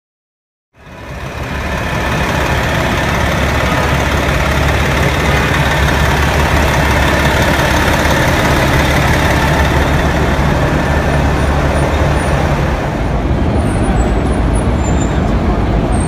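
Heavy city street traffic: a steady low rumble of engines with a constant wash of road noise, fading in about a second in.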